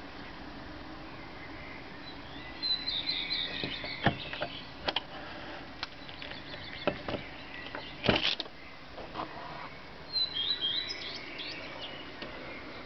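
Male common redstart singing two short song phrases of high notes, about three seconds in and again near eleven seconds. Between them come several sharp clicks, the loudest about eight seconds in.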